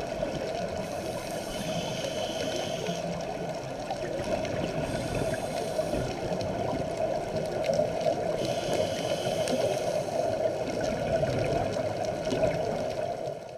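Underwater sound picked up by a diving camera: a steady watery rush and gurgle. Twice, a soft hiss lasting about a second and a half comes through, one early and one past the middle, which fits a scuba regulator during a diver's breaths.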